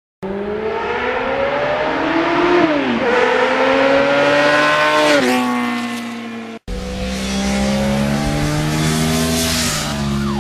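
Motorcycle engine accelerating hard through the gears. Its pitch climbs and drops sharply twice at the upshifts. After a sudden cut about two-thirds of the way through, a steadier engine note runs on.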